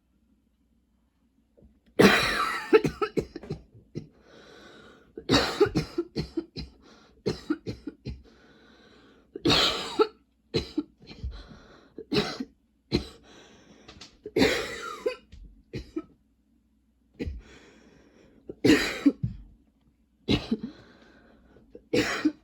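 A woman coughing in a long spell, starting about two seconds in: repeated runs of sharp, hacking coughs with breaths drawn in between them. The coughing is from a lingering tickle in the throat.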